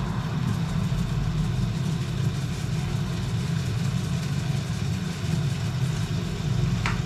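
A steady low rumbling hum from the gas hob, with a pot of pork boiling on it. No distinct grinding or knocks stand out.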